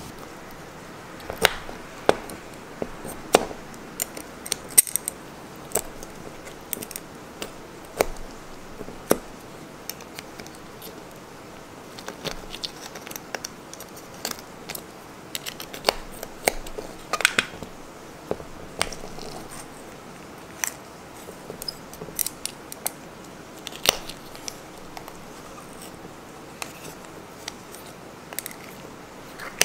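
Thin metal skewer clicking and scraping against horned turban snail (sazae) shells while the meat is pried out, with occasional sharper knocks of shell on shell or on the steel tray. The clicks come singly and in small clusters at irregular intervals.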